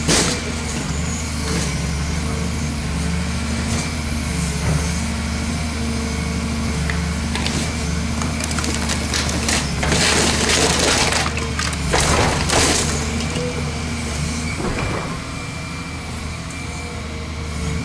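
Volvo EC210CL excavator's diesel engine running steadily under hydraulic load, with several loud bursts of crunching and cracking as the bucket crushes a dishwasher's metal and plastic, the loudest about ten and twelve seconds in.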